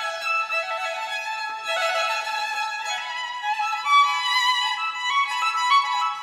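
Background music: a violin melody of sustained notes with little bass underneath.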